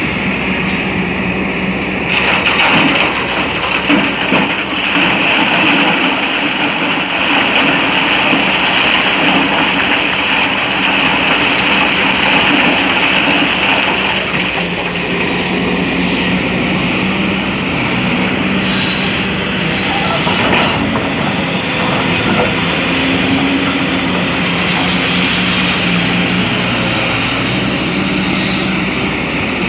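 Excavator's diesel engine running steadily under load, with a loud hiss over the engine hum and a few sharp knocks from the working bucket and sand.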